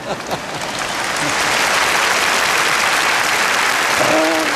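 Audience applauding, swelling over the first second and then holding steady, with a brief voice heard near the end.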